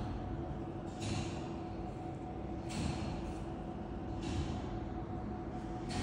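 Weight-driven bell-tower clock mechanism running through its 17:45 cycle: iron gears and a rope drum turning with a steady mechanical hum and rumble. A short rasping rush comes about every second and a half.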